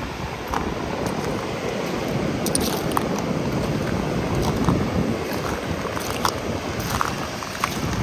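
Caspian Sea surf breaking and washing up a flat sandy beach, a steady rushing noise with short hissy splashes scattered through it. Wind buffets the microphone.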